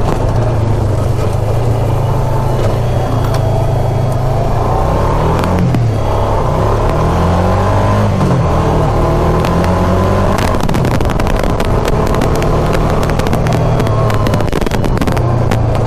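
ATV engine running while riding a trail, a steady low hum that dips and rises in pitch around the middle. From about ten seconds in, many sharp clicks and rattles ride over it.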